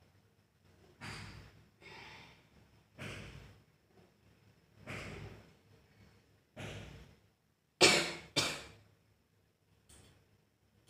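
A person blowing the nose hard: about five short, forceful nasal blasts a second or two apart, then two much louder, sharper blasts in quick succession near the end.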